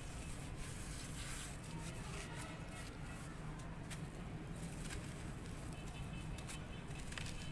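A lump of dry red dirt crunching and crumbling as hands squeeze and break it close to the microphone, with loose soil trickling down. Several sharp cracks stand out through the steady gritty crackle.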